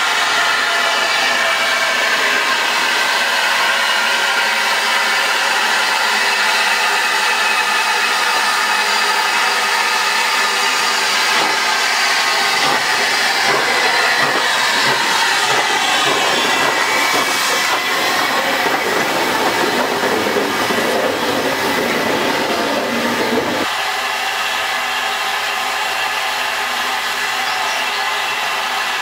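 USATC S160 2-8-0 steam locomotive moving slowly past at close range, hissing steadily from its open cylinder drain cocks. About three-quarters of the way through, the sound changes abruptly to a quieter, steadier hiss.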